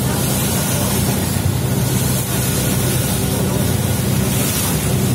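River shuttle boat's engine running at a steady cruise with a low, even drone, under a constant rush of water and wind, heard from inside the open-sided passenger cabin.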